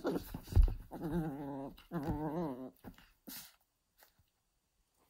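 Papillon puppy growling in play: two drawn-out, wavering growls about a second long each, one after the other, with a thump about half a second in.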